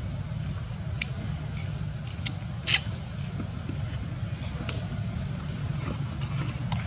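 Steady low wind rumble on the microphone outdoors, with a few faint clicks and one brief, sharper sound a little under three seconds in.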